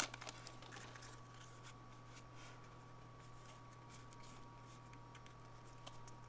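Faint soft clicks and slides of 1992 Fleer baseball cards being pushed apart one by one in the hands, over a steady low hum.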